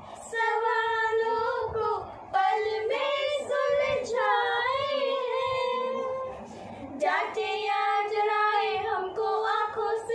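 A young girl singing a slow melody unaccompanied, holding long notes, with two short breaths between phrases.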